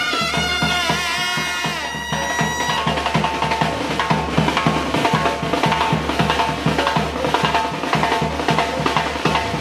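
Murga street band playing: for the first couple of seconds held, wavering notes, then the drums come in with a fast, steady beat of bass drum and snare under the band.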